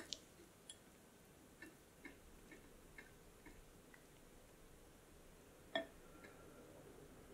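Faint, soft clicks and taps of a silicone spatula against a glass bowl as chopped chocolate is stirred into a smooth paste, roughly two a second, with one sharper click near the end.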